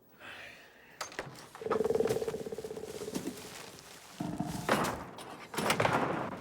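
A sharp thud, then creature sound effects: a pulsing, buzzing trill, followed by two loud rasping calls.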